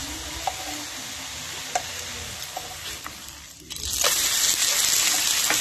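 Besan-and-cornflour pancake sizzling in butter in a non-stick pan. About four seconds in it is flipped, and the sizzle suddenly gets much louder as the buttered, uncooked side lands on the hot pan.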